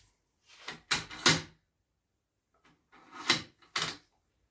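Bolt of a Sabatti-made Mercury ST18 bolt-action rifle worked open and shut, in two rounds of metal clicks and short sliding strokes, about a second in and again about three seconds in. The action runs smoothly.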